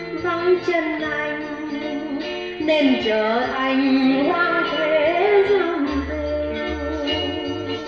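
A song played back from cassette on a Nakamichi 600 II deck: a singing voice holding and sliding between notes over sustained accompaniment, with a bass line coming in about six seconds in.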